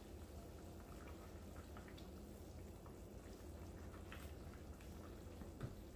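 Wooden spoon stirring a brothy stew in an enamelled cast-iron pot: faint wet sloshing with a few light taps, over a low steady hum.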